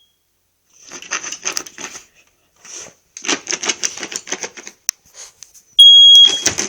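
Smoke detector giving a single loud, high-pitched beep about half a second long, near the end. Before it come two stretches of irregular scuffling noise.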